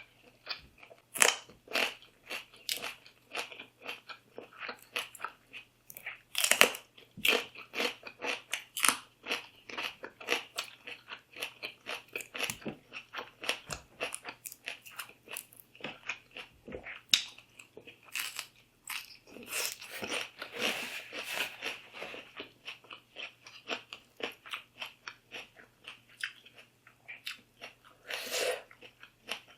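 A person chewing and biting food close to the microphone, with irregular wet crunches and mouth clicks.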